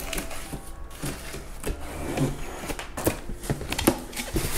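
Cardboard shipping box being unboxed: packing tape being cut and pulled and the cardboard flaps lifted, an irregular run of short crackles, scrapes and rustles.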